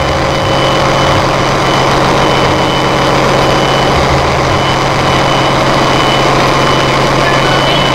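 Ship's diesel generator engines running in a marine engine room: a loud, steady low drone with a thin, constant high whine over it.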